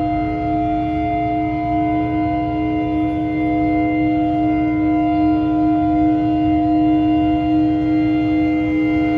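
Several ships' horns held together in one long, unbroken blast: steady overlapping tones with a low rumble beneath.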